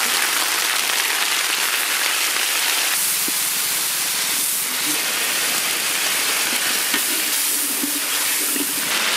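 Bay leaves, cumin seeds and ginger frying in hot oil in a wok, stirred with a flat spatula: a steady sizzling hiss.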